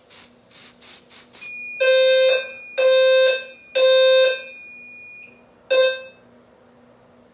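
A few short hisses of aerosol test smoke. Then the fire alarm system sounds as the smoke detector trips in walk test: three long, loud, low beeps about a second apart, in the temporal-three pattern, and the start of a fourth. A steady high beep sounds over them for about four seconds.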